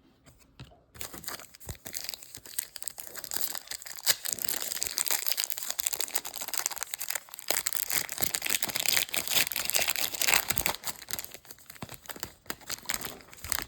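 Foil trading-card pack wrapper being torn open and crinkled, a dense, continuous crackling that starts about a second in and stops just before the end.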